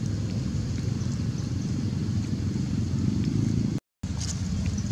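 Low, fluttering rumble of wind buffeting the microphone outdoors, with the sound cutting out completely for a moment about four seconds in.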